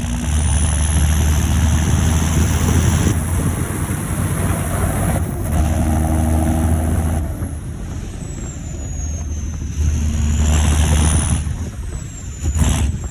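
John Deere 7530 Premium tractor's six-cylinder turbodiesel engine running on the road, pulling hard three times and easing off between. A high turbo whistle rises and falls over it, with a short knock near the end.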